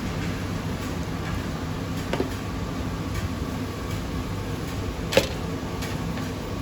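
Steady low rumble of a street-food stall with two sharp clinks, the first about two seconds in and a louder one about five seconds in.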